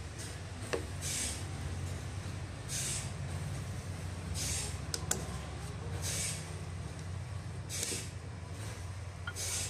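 Sawmill machinery running steadily with a low hum, a short hiss repeating about every second and a half, and a few light metal clicks as pliers work at a hole in the beam.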